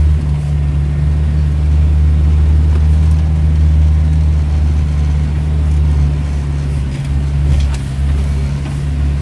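A motor vehicle's engine running with a steady low drone that holds an even pitch.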